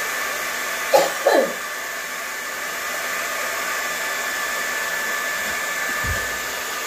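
Handheld hair dryer blowing steadily, with a steady whine over its rushing air. About a second in come two short sounds that glide down in pitch, the loudest moment, and a brief low thump follows near the end.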